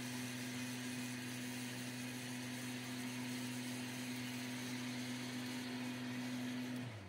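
Steady motor hum that winds down with a falling pitch and stops near the end, as a machine is switched off.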